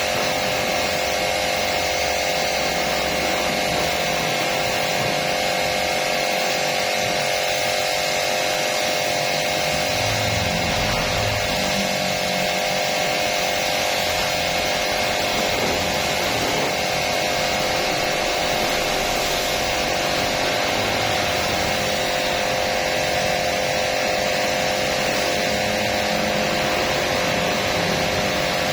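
Small petrol engine running steadily at a constant speed, an even mechanical drone with a few held tones and no change in pitch.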